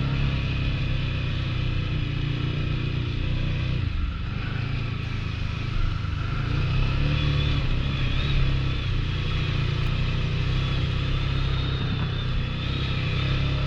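Big-bore ATV engine running under load, its pitch rising and falling as the throttle changes, with a brief dip about four seconds in.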